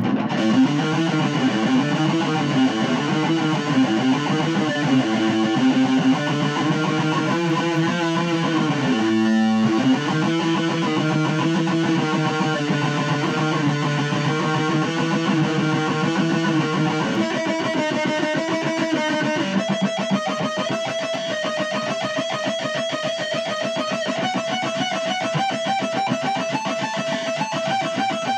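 A guitar being played continuously, a picked and strummed song part whose pattern changes about seventeen seconds in.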